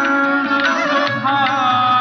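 Hindu devotional aarti song: a melody sung with bends and slides over a sustained drone and a steady percussion beat.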